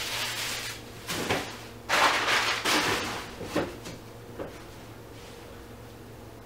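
Several short bursts of rustling, scraping noise, the longest and loudest about two to three seconds in, over a steady low hum.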